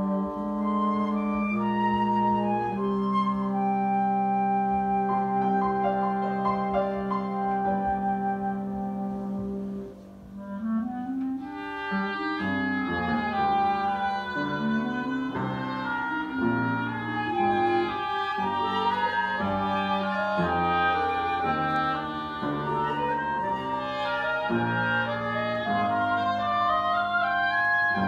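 Live instrumental music from a small ensemble with piano: long held notes, a brief drop in loudness about ten seconds in, then a livelier melody of quick, sliding notes.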